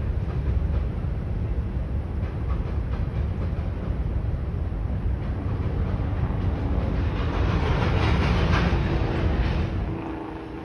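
Freight train cars rolling past in a steady low rumble, with wheels clattering over the rails. The sound grows louder and brighter about two-thirds of the way through, then eases off near the end.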